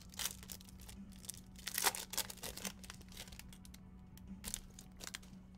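Foil wrapper of a trading-card pack crinkling and tearing as it is opened: a string of short crackles, loudest about two seconds in.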